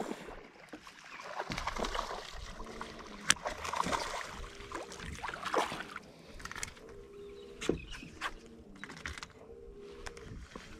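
A hooked fish thrashing and splashing at the water's surface as it is reeled in to the boat, with a few sharp knocks.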